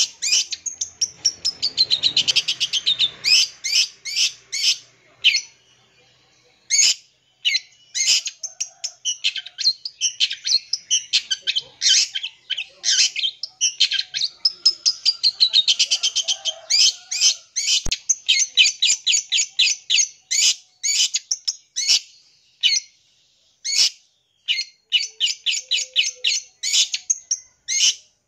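Long-tailed shrike (cendet) singing: fast chattering runs of sharp, high notes and trills, mixed with mimicked calls of other birds. The song comes in bursts of a few seconds with short pauses between.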